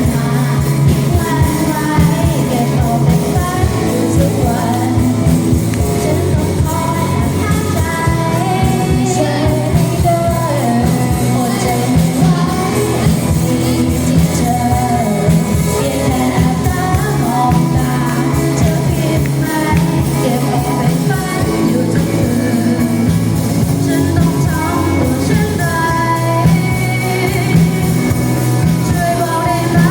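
Rock song with a lead singer over a full band, playing at a steady loud level without breaks.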